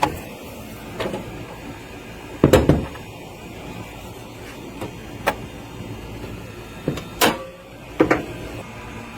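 A handful of separate knocks and clicks from something being handled, the loudest about two and a half seconds in, over a steady low background.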